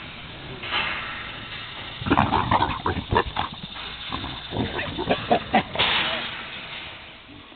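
Pigs calling in a rapid run of a dozen or so short calls, beginning about two seconds in and stopping a little before the end.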